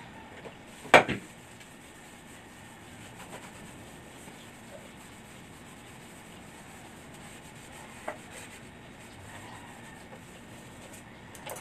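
A loud knock about a second in, then faint rubbing with a couple of light clicks, as a tabletop gas stove is being cleaned by hand.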